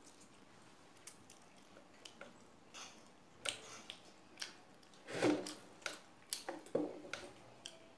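Someone chewing a mouthful of chicken chow mein, with scattered small clicks and soft wet noises; the loudest comes about five seconds in.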